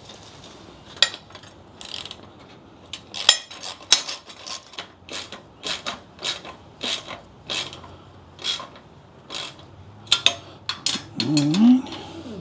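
Hand ratchet wrench clicking in repeated strokes while bolts on the cart's frame are tightened down. A brief louder sound that rises and falls in pitch comes near the end.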